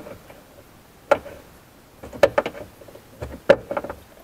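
Sharp plastic clicks and taps as a tool pries at the clip-on tab of a Lexus IS200t luggage compartment trim panel: one about a second in, then clusters of several clicks about two and three and a half seconds in.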